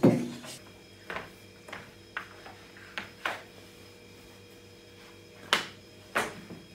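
A loud thump right at the start, then a scattered series of short knocks and rustles: people shifting, stepping and handling clothing in a small room.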